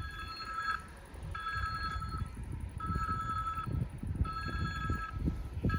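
Railway level-crossing warning signal sounding: a repeated electronic ringing tone, each ring under a second long, about every second and a half, warning that a train is approaching.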